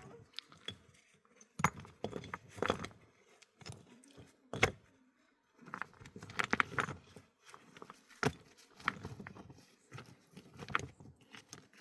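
A series of irregular knocks and clatters, some coming in quick clusters, as of objects being handled and set down.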